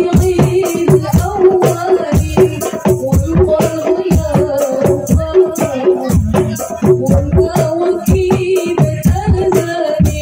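A woman singing sholawat through a microphone and PA over hadroh percussion, frame drums beating a fast, dense rhythm.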